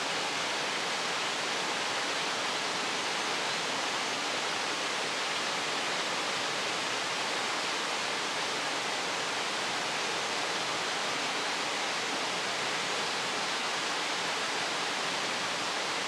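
Steady, even rushing of a mountain stream, a constant hiss of flowing water.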